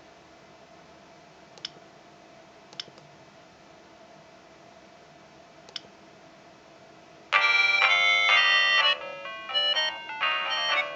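Three soft key clicks on a Gigaset cordless DECT handset, then about seven seconds in a cordless handset starts ringing with a loud, melodic polyphonic ringtone as the dialled extension receives the call.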